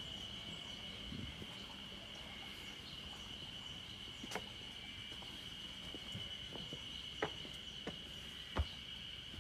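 Insects calling in a steady, unbroken high buzz, with a few scattered sharp clicks.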